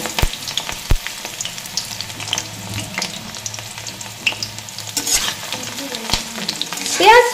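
Freshly added diced onions sizzling and frying in hot mustard oil in a karai, with a few sharp knocks against the pan.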